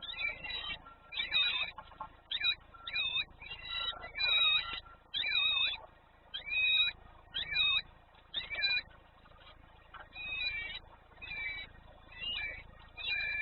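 Birds calling repeatedly: short, sweeping calls about one and a half a second, with a short pause about nine seconds in.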